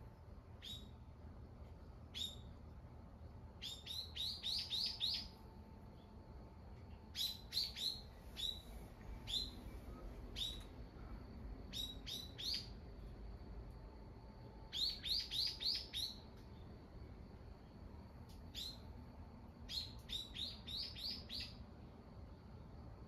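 A bird chirping repeatedly: short high single chirps and quick runs of five or six notes, coming in several bouts.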